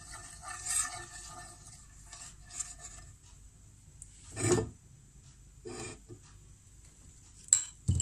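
White plastic spoon rubbing and scraping over a non-stick frying pan as it spreads a little oil, with a louder thump about four and a half seconds in and a couple of sharp clicks near the end.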